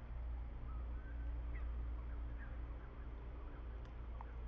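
Outdoor ambience: a steady low rumble with a few faint, short bird chirps scattered throughout.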